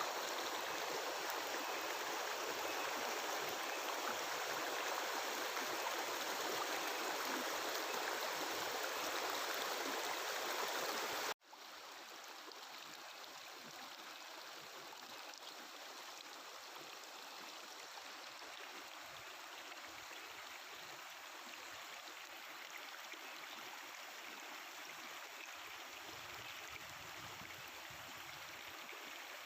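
Mountain river babbling and rushing over rocks, a steady noise of flowing water. About eleven seconds in it cuts abruptly to a quieter stretch of the same kind of flowing water.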